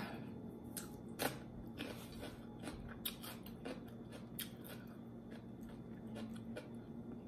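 A raw mini sweet pepper being bitten into and chewed with the mouth close to the microphone: a string of short, crisp crunches at irregular intervals, one sharper crunch about a second in.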